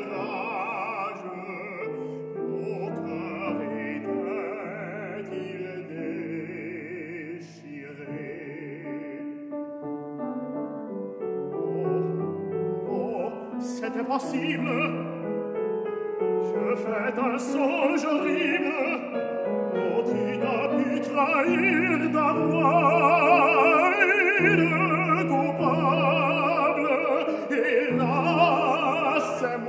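A baritone singing a French operatic aria with vibrato, accompanied by a grand piano. The singing grows louder through the second half.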